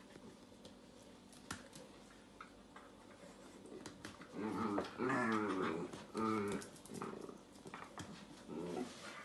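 Dachshunds growling in play as they wrestle, with a run of loud, wavering growls from about four to seven seconds in and a few softer ones near the end; before that, only faint clicks and scuffling.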